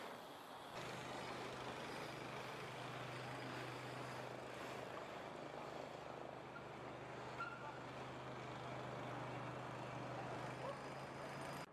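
Steady outdoor background noise with a low, even hum that sets in about a second in.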